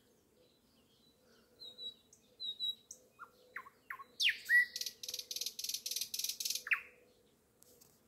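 Nightingale singing one song phrase: a few soft high notes, then quick falling whistles, a loud sweep and a fast dry rattling trill of about five strokes a second, closing on a falling whistle.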